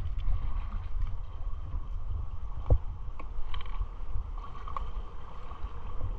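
Wind rumbling steadily on the microphone over gently washing shallow sea water, with one sharp knock about two and a half seconds in.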